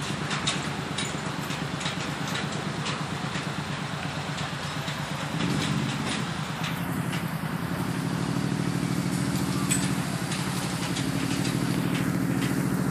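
Small engine of a ride-on miniature locomotive running steadily with a fast pulsing hum, getting a little louder about five seconds in. Light ticks sound over it throughout.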